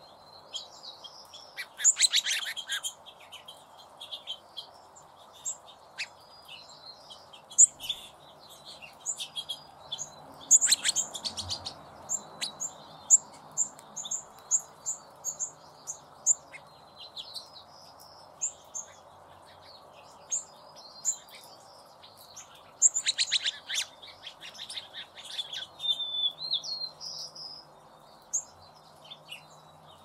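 Small songbirds chirping and calling in short high notes, with a quick run of evenly spaced chirps and a few louder flurries of rapid notes.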